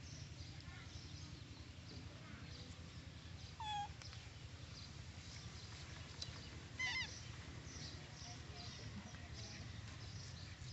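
Macaque giving two short, squeaky calls, each a quick falling cry, about four and seven seconds in, over a steady low background hum.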